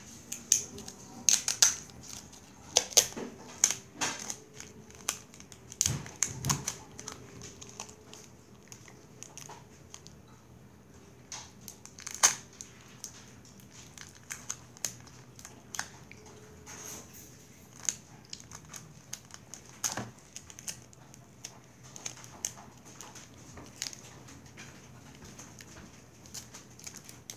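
Clear tape being pulled off its roll and torn, crinkling with sharp crackles and clicks, busy for the first several seconds and then coming in scattered bursts.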